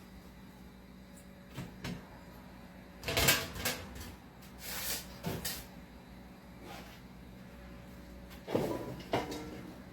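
Irregular knocks and clunks with a short rustle as ingredients and containers are handled, with the heaviest clunks about three seconds in and again near the end.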